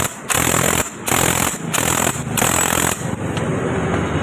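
A motor running in short repeated bursts, about two a second, each cut off by a brief break.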